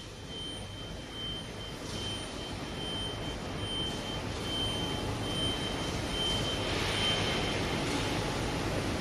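Steady machinery noise from an automated sheet-metal sorting line, growing slowly louder, with a thin high tone pulsing on and off and a brief hiss about seven seconds in.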